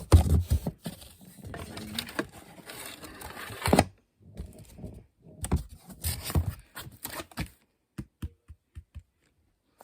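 Rustling and clattering as things are moved around in a packed cardboard box, in two stretches of handling, followed by a few separate sharp taps near the end.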